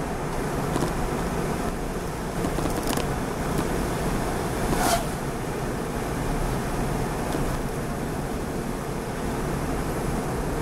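Steady road noise heard inside a car on the move, a low rumble of engine and tyres on the road surface. A few short knocks rise above it, the loudest about five seconds in.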